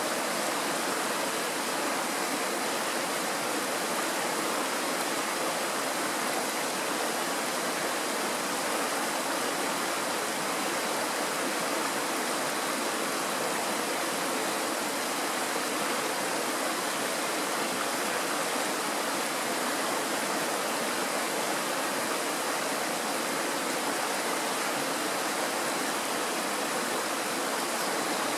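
Shallow mountain stream rushing steadily over stones and small rapids.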